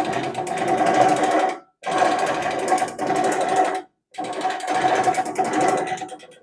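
SV15 sausage stuffer's internal gear system running with a grinding noise, the fault for which the machine was returned. It comes in three runs of about two seconds each, with sudden short breaks between them.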